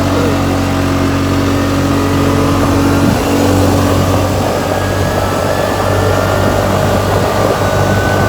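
CFMoto four-wheeler's engine running at a steady speed while the ATV is being driven.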